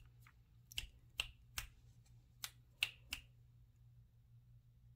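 Fingers snapping about six times in an irregular run of sharp clicks, beginning about a second in and stopping a little past halfway.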